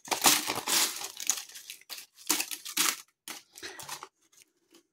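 A hand rummaging through an open foil-lined bag of crinkle-cut crisps: the packet crinkles and the crisps rustle and clatter in a quick run of sharp crackles that thins into separate rustles and stops near the end.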